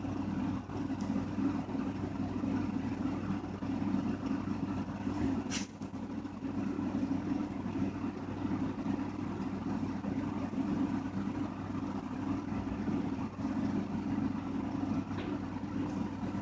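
Steady low mechanical hum, like a motor or engine running, with a single sharp click about five and a half seconds in and a fainter one near the end.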